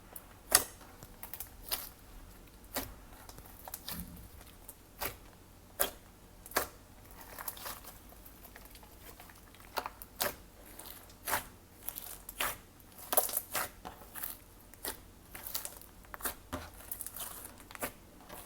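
Glossy slime being kneaded and stretched by hand, giving off irregular sticky clicks and small air-pocket pops, a few a second with quick clusters.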